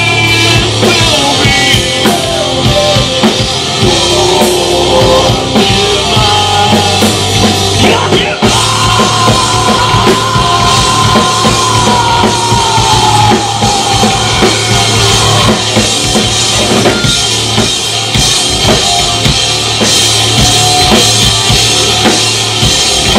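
Live rock band playing an instrumental passage: electric guitars and a full drum kit, loud and dense throughout, with a long held high note that slowly falls about halfway through.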